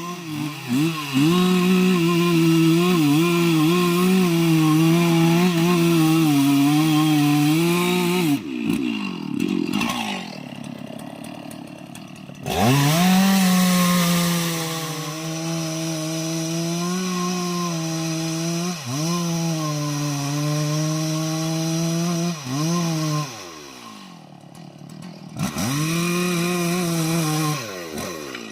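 Two-stroke chainsaw running at high revs while cutting into an aanjili tree's wood. It drops back toward idle about a third of the way in and again near the end, revving back up each time, with a few brief dips in between.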